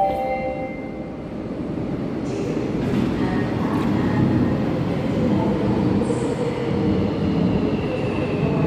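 Seoul Subway Line 5 electric train pulling into an underground station behind platform screen doors, its rumble building and growing louder, with a thin electric whine coming in near the end. At the start, the last notes of the station's arrival chime fade out.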